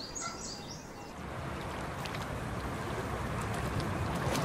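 A few short bird chirps, then a steady rushing of a wide flowing river that swells gently.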